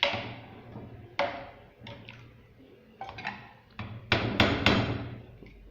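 Metal cookware clanking: a pressure cooker pot and lid knocking together in a few separate strikes, then a quicker run of louder clanks about four seconds in.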